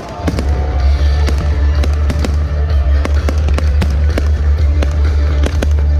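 Fireworks display going off: aerial shells bursting in a rapid, irregular series of bangs and crackles.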